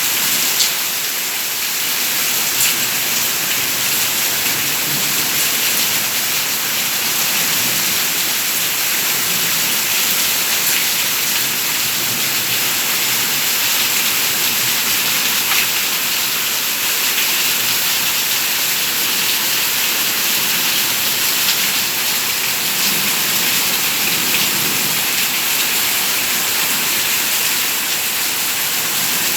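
Steady, heavy rain falling and pattering on surfaces, an even hiss with scattered drop ticks.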